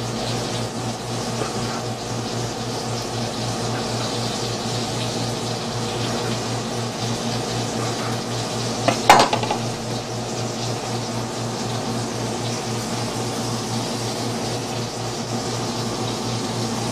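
Chef's knife cutting through cooked lobster tail meat on a wooden cutting board, over a steady low hum, with one sharp knock about nine seconds in.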